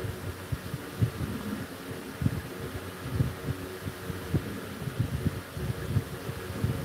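Irregular low thumps and rumbling on the phone's microphone, several a second, over a faint steady low hum.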